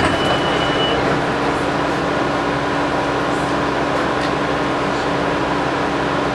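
Steady hum and rush of a light rail car's ventilation and onboard equipment while it stands at a station, heard from inside the car. A thin high tone stops about a second in.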